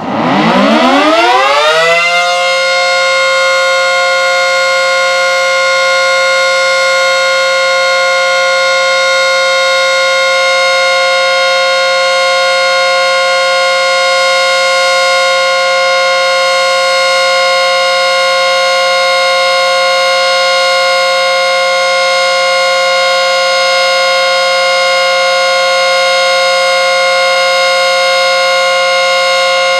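ACA Screamer S10 electromechanical warning siren, wired in reverse, winding up quickly from low pitch to full speed over about two seconds. It then sounds the steady full-alert tone, a loud held chord of several pitches.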